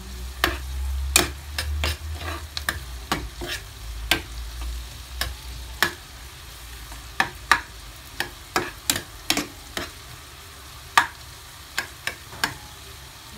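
A metal spoon stirring onion, garlic and green chili frying in butter in a stone-coated wok: irregular sharp clinks and scrapes of the spoon against the pan over a soft sizzle. A low rumble runs underneath for about the first six seconds, then fades.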